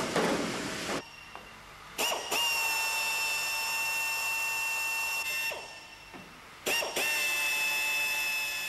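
Power drill drilling holes in an aircraft's aluminium skin: a steady high whine that starts with a quick spin-up about two seconds in, stops, and starts again the same way near the end. A harsh noise fills the first second.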